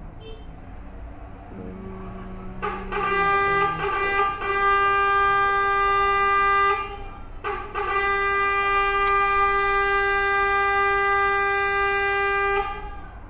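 Vehicle horn, likely a garbage truck's, sounding two long steady blasts of about four and five seconds with a short break between them.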